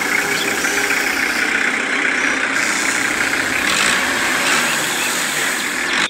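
Mini toy tractor running steadily under load, its rear wheel spinning in loose sand.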